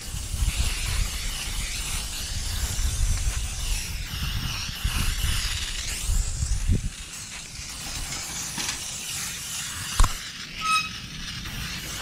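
Aerosol tire-shine spray hissing onto the truck's tires, with an uneven low rumble underneath. The hiss fades after about seven seconds, and there is a sharp click near the end.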